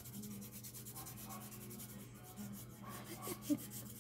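A small hand file scraping back and forth against the skin of a bare foot in quick, even strokes, several a second.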